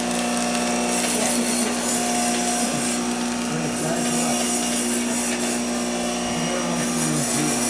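A power tool's motor running steadily with a rough, uneven scraping over its hum.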